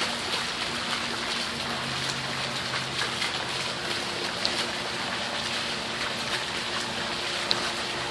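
Steady trickling of running water from a small garden pond, under a faint low hum, with a few small ticks of drips.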